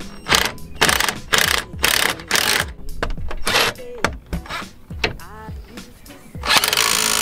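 Cordless impact wrench tightening brake caliper bolts: a string of short trigger bursts, then from about six and a half seconds in a continuous run of rapid hammering as it drives a bolt home. Background music plays along.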